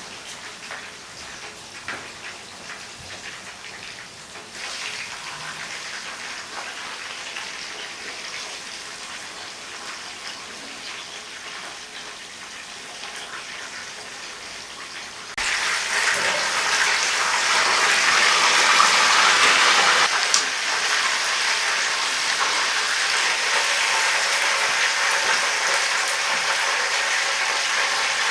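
Marinated chicken leg pieces frying in hot ghee: a steady sizzle that suddenly gets much louder about halfway through.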